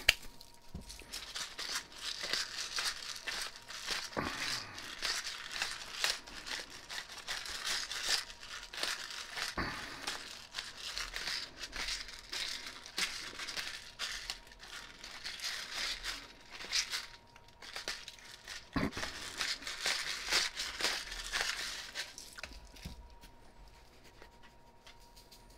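Hand-twisted spice grinder grinding coarse seasoning: a steady gritty crunching made of many small cracks, with short pauses, that stops about 22 seconds in.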